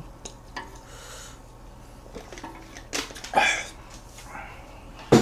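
A man drinking sparkling water from a glass bottle, followed about three seconds in by two short breathy exhales, and a sharp knock near the end.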